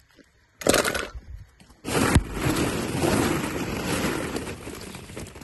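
Plastic ball-pit balls clattering and rustling against each other as they are stirred: a short rush about half a second in, then a longer one from about two seconds in that slowly fades.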